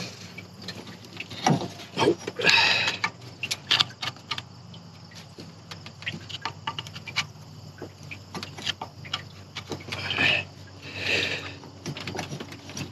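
Hand tools working on metal in a pickup's engine bay: scattered clicks and knocks, with a few short rasping bursts, about two and a half seconds in and again near the end.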